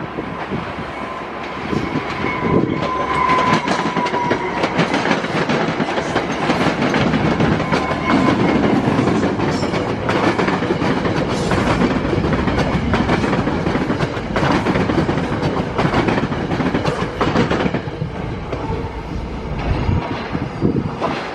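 Train rolling past, its wheels clicking steadily over the rail joints. A high steady tone rings over the passing cars for the first few seconds.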